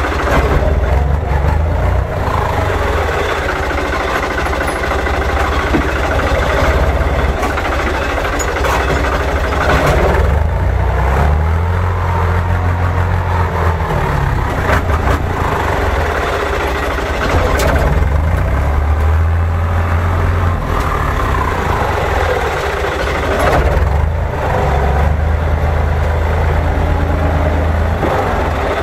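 Farm tractor engine running under load, its revs rising and falling several times.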